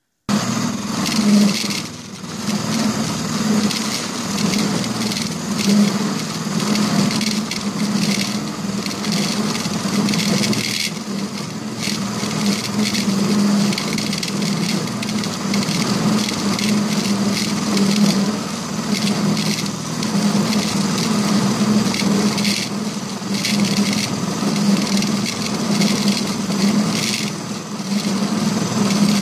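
Milling machine running with its toothed disc cutter taking a cut along the side of a metal T-nut: a steady machine hum under continuous cutting chatter.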